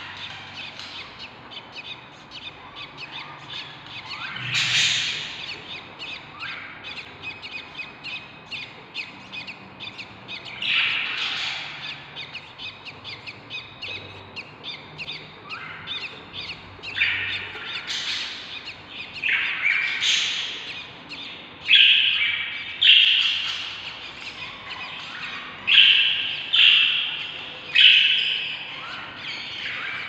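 Budgerigars chirping in a steady stream of quick small calls, with louder harsh calls every few seconds. The loud calls come close together in the last third.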